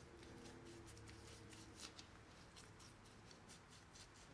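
Faint, quick scratching strokes, several a second and uneven in strength, over a low steady hum.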